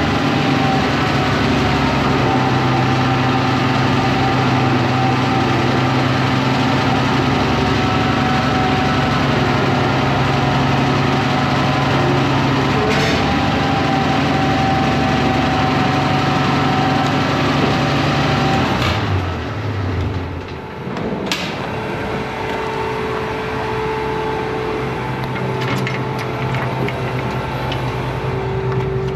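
Combine's diesel engine running steadily. About two-thirds through the sound dips and changes, then it runs on at a different steady pitch.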